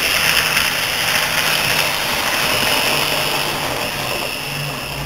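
Model electric train running along the layout's track: a steady rolling, whirring noise over a low hum, slowly fading as the train moves off.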